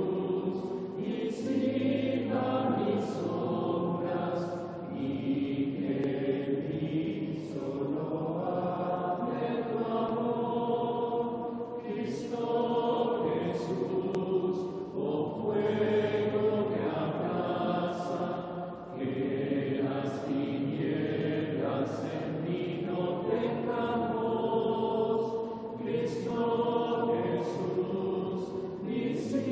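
Congregation singing a slow, repetitive Taizé chant together, in phrases a few seconds long with short breaths between them.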